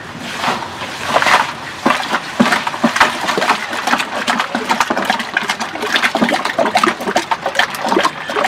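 Ice cubes and lemon-mint juice sloshing and clinking in a plastic bucket as it is stirred hard with a wooden paddle: a quick, irregular run of splashes and knocks.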